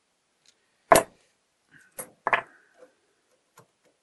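Sharp metallic clicks and knocks from a steel AUBI window-fitting gearbox being handled with combination pliers, and the pliers set down on the bench. The loudest knock comes about a second in, a quick pair around two seconds in, then a couple of lighter taps.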